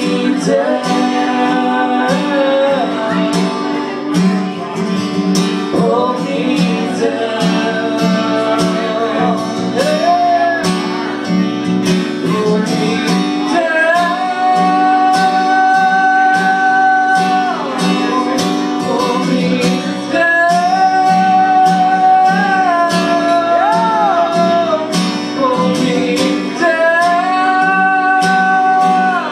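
Live acoustic guitar strummed in a steady rhythm, with two men singing over it; in the second half the vocals hold long notes for several seconds at a time.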